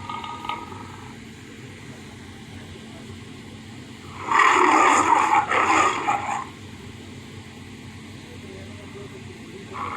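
MGM logo lion roar sound effect: one roar about four seconds in, lasting about two seconds, and another starting near the end, with low hiss between.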